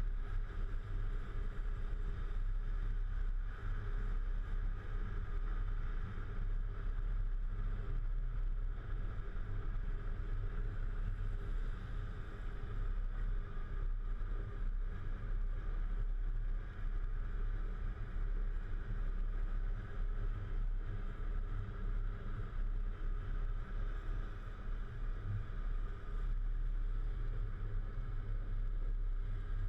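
Volvo FH 440 truck's diesel engine running steadily as a low drone, with a steady hiss above it.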